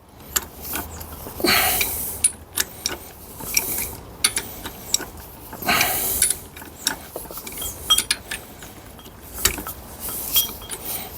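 Metal clicking and scraping from hand tools working a puller as the fifth-gear assembly is drawn off a gearbox shaft. Irregular sharp clicks, with a couple of short grinding scrapes.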